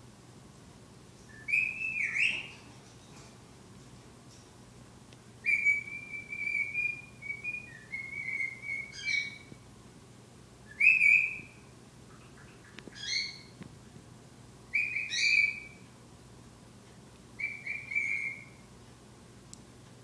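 Pet cockatiel whistling its song: about seven short clear whistled phrases with gaps between them, made of level notes and quick upward sweeps, with one longer run of level whistles about six seconds in.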